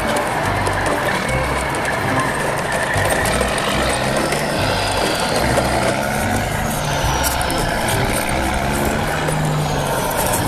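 Heavy truck engine running with a steady low rumble, heard over a line of toy dump trucks.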